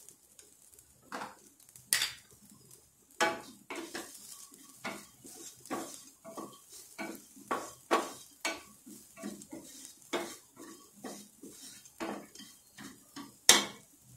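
Wooden spatula stirring and scraping chopped cashews, almonds and raisins as they fry in ghee in a nonstick pan: a run of irregular scrapes and taps, with a sharp knock near the end.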